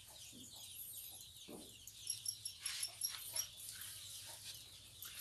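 Faint calls of farmyard fowl in the background, with a quick run of short, evenly spaced high chirps about two seconds in.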